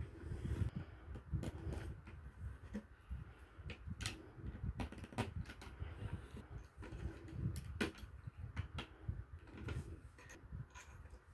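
Small plastic building bricks clicking and clattering as they are handled and pressed together, an irregular scatter of sharp clicks.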